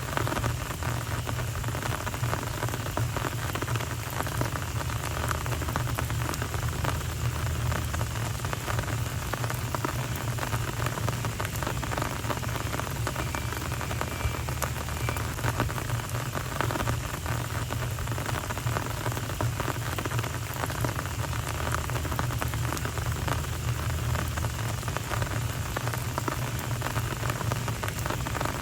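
Steady rain falling on a paved street, a dense patter of drops hitting the surface, with a steady low hum underneath.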